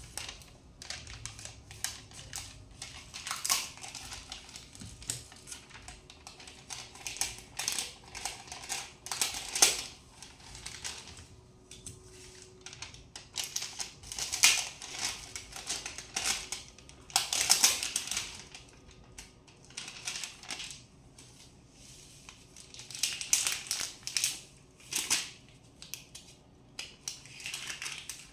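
Sticker sheets crinkling and rustling as they are handled and stickers are peeled off, in short irregular bursts.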